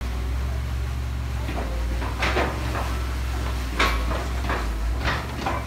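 Komatsu excavator tearing into a building's facade with its grapple claw: its engine runs steadily under a string of sharp cracks and crunches as the wall breaks apart.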